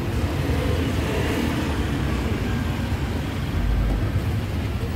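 Busy outdoor street-market ambience: a steady low rumble with a wash of noise, with no single event standing out.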